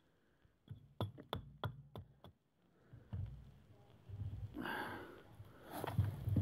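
A fatwood branch being handled on a wooden chopping stump: a quick run of light wooden knocks about a second in, then rustling and scraping as it is turned and laid across the stump.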